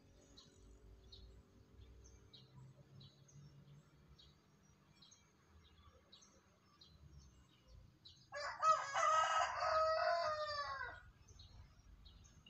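A rooster crows once, about eight seconds in: one long call of about two and a half seconds that falls in pitch at the end. Faint high chirps repeat about twice a second underneath.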